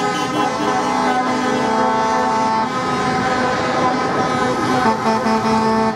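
Truck air horns sounding in long, overlapping held blasts as a convoy of DAF lorries drives past, over the rumble of their diesel engines.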